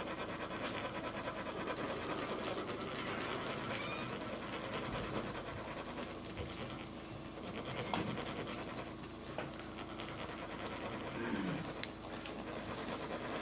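Metal chak-pur sand funnels being rasped, a steady dense scratchy rattling as the ridged cones are grated to trickle coloured sand onto the mandala, with a few sharp clicks.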